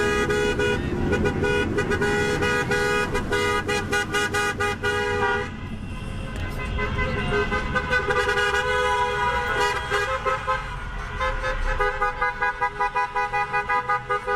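Several vehicle horns honking together, held blasts overlapping, changing to a different set of horns about halfway through and to rapid repeated beeps near the end.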